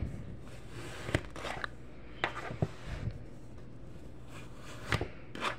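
Kinetic sand being pressed and cut by hand and with a plastic scraper: irregular soft crunches, scrapes and taps, the sharpest about a second in, over a steady low hum.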